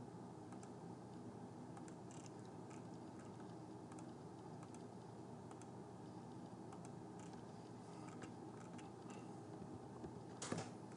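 Faint computer mouse clicks and keystrokes, scattered short clicks over a steady low room hum, with a louder brief noise near the end.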